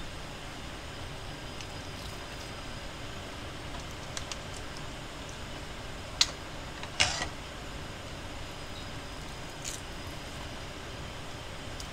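A metal spoon clinking and briefly scraping against a stainless steel soup pot a few times, the loudest about 7 seconds in, over a steady low background hum.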